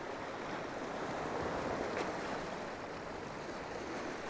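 Small waves from a calm sea lapping and washing over shoreline rocks, a steady wash that swells slightly in the middle. A faint click sounds about two seconds in.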